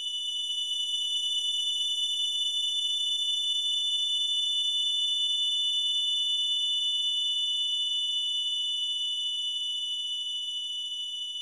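A steady high-pitched electronic ringing tone, two close pitches sounding together over a faint low hum, easing down slightly near the end.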